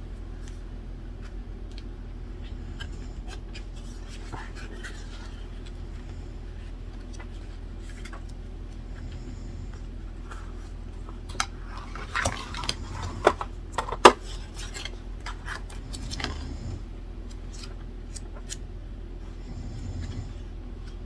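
Small hard objects clicked, knocked and set down on a desk, with a flurry of clattering in the middle and one sharp knock loudest about 14 seconds in, over a steady low hum.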